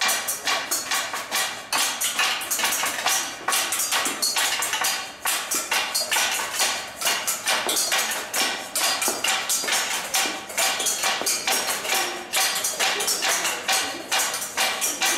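Group percussion played on kitchen utensils: metal colanders and bowls struck with wooden spoons, a saucepan lid and scrunched plastic bags, keeping up a fast, dense rhythm of clattering strikes.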